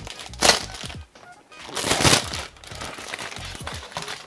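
Clear plastic shrink-wrap crinkling as it is peeled off a cardboard ration box, with two louder bursts about half a second and two seconds in and fainter rustling between.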